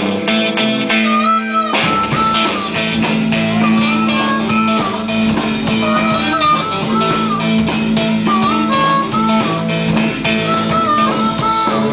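Live blues band playing a song's instrumental intro, led by electric guitar with bending notes; the fuller band with drums comes in about two seconds in.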